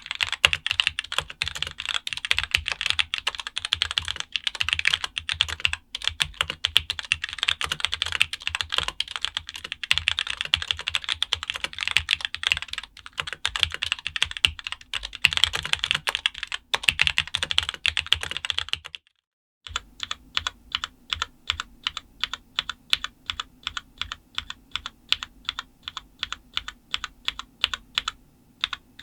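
Amtelco KB163 mechanical keyboard with Cherry MX Black linear switches being typed on quickly in a dense stream of keystrokes. After a brief break about two-thirds of the way in, it goes on with slower, evenly spaced single key presses, about three or four a second.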